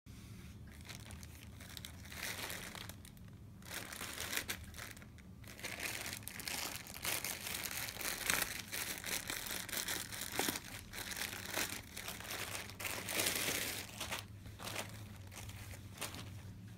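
Clear plastic packaging bag crinkling and rustling in irregular bursts as hands press on it, open it and slide the towels out, loudest about halfway through and again near the end.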